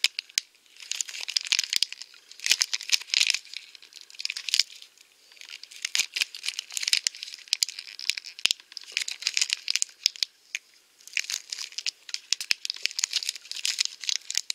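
Thin plastic wrapping being crumpled and torn open by hand. It comes in crackling, crinkling bursts with sharp clicks, broken by two short pauses.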